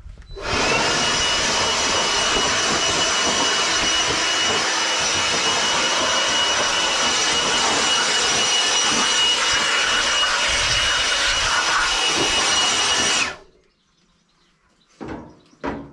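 DeWalt handheld blower running steadily, a rush of air with a high whine over it, blowing fine sawdust out of a sawmill's blade housing. It starts abruptly and cuts off about thirteen seconds in.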